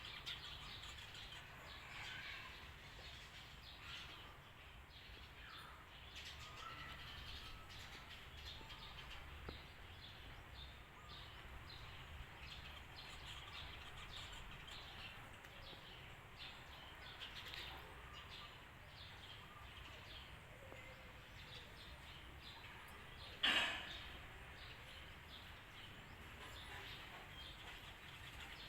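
Faint, scattered bird chirps and calls over steady low background noise, with one sharp knock about twenty-three seconds in.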